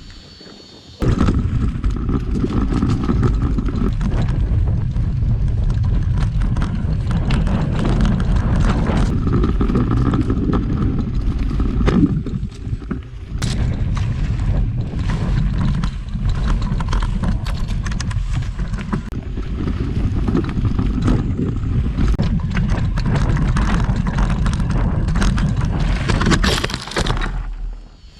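Mountain bike ridden fast over a dirt trail: wind rushing over the microphone with the rumble of knobby tyres and the frame and drivetrain rattling, with many sharp knocks from bumps. It starts suddenly about a second in and stops shortly before the end.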